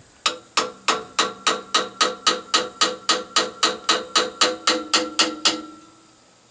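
A hammer tapping a small screwdriver, used as a wedge, into the seam between the cast-iron intake and exhaust manifolds of a 1959 GMC engine. It strikes evenly at about three a second for roughly five seconds, and each strike rings in the metal. The taps are working the stuck manifold joint apart.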